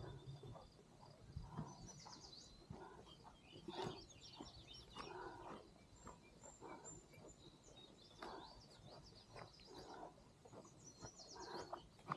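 Faint songbird song: short high trills repeated several times, over soft scattered rustling.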